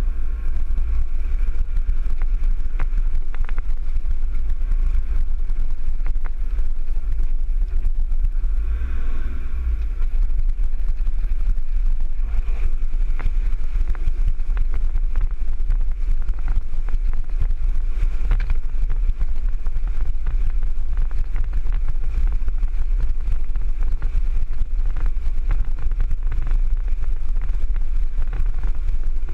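Four-wheel-drive vehicle driving off-road and wading creek crossings, heard through a camera mounted outside the vehicle: a steady low rumble of engine, wind and tyres, with scattered knocks and rattles from the rough track and water pushing against the body.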